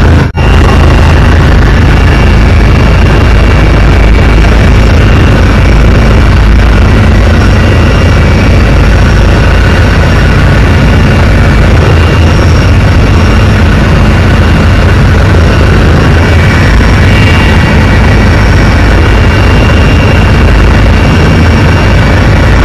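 Helicopter engine and rotor noise, heard on board in flight: a loud, steady din with a brief dropout just after the start.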